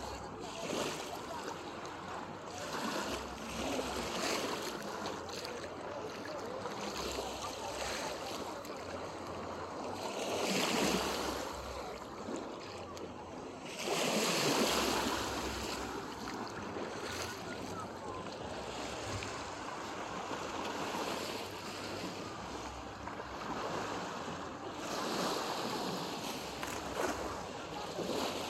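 Shallow seawater washing and lapping at the shore, with wind buffeting the microphone; two louder surges of water about ten and fourteen seconds in.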